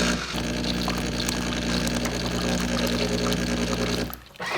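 Jura E8 super-automatic espresso machine dispensing hot water: its pump runs with a steady hum over a hiss, then cuts off about four seconds in.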